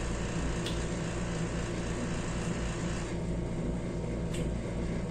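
Steady mechanical hum and hiss of room air conditioning, with two faint clicks, one near the start and one near the end.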